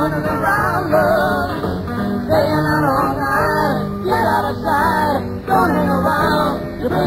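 Rock music: singing over guitar and bass.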